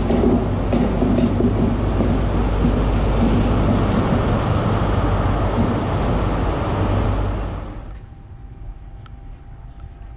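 Diesel engines of LNER Intercity 125 (HST) power cars running loud at the platform, with a steady low drone and engine tones, as a train moves along beside the platform. About eight seconds in, the noise falls away to a quiet steady hum.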